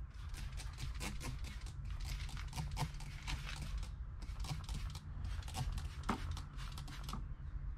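Trigger spray bottle of degreaser squeezed again and again, a string of short hissing sprays about two or three a second, over a steady low hum.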